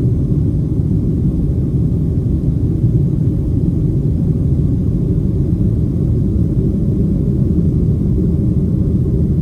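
Steady low rumble of a Boeing 737's engines and airflow, heard from inside the passenger cabin as the jet climbs out after takeoff.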